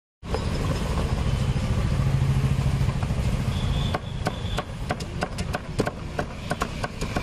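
A steady low engine rumble, like a motorbike running close by, fills the first half. About halfway through it gives way to a quick run of sharp knife chops on a wooden chopping block, two or three a second, as raw jackfruit is cut up.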